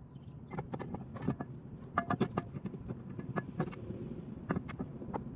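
Irregular clicks and knocks of metal brake parts being handled while a new rotor and the caliper are being fitted to a car's wheel hub.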